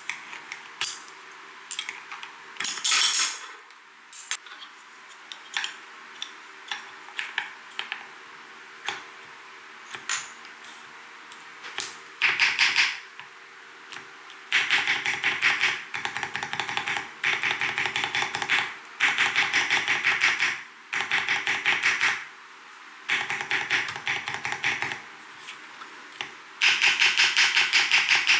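Mstone Groove T87A keyboard with silent 'milky' 45 g switches being typed on. At first there are scattered single keystrokes. From about twelve seconds in come fast runs of typing, each lasting a second or two, with short pauses between them.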